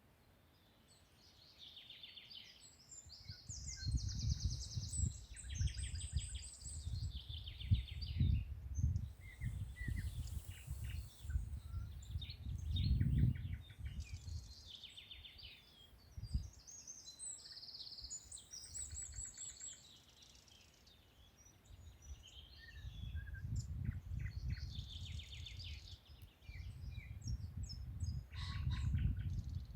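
Several songbirds singing and chirping in a forest, with many short, rapid, high-pitched trills and phrases overlapping. Low rumbling gusts of noise rise and fall twice, for several seconds each time, and are louder than the birdsong.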